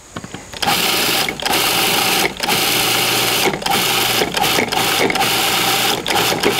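Food processor motor running in pulses, chopping dandelion leaves into a pesto base. It starts about half a second in and is switched on and off, with several short breaks.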